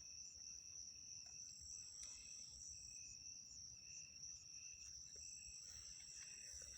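Faint, steady insect chirring: one continuous high trill with a lower trill beneath it that comes and goes.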